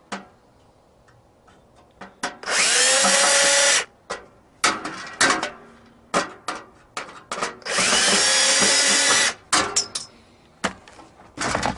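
Cordless drill backing screws out of a space heater's bottom panel: the motor runs in two bursts of about a second and a half, each spinning up in pitch and then holding steady. Short clicks and knocks come between the bursts.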